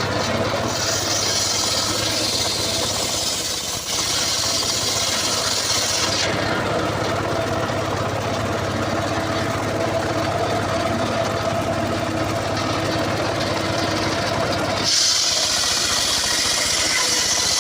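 An engine-driven saw running steadily on coconut wood, with a loud high hiss of the blade cutting from about a second in to six seconds, and again near the end.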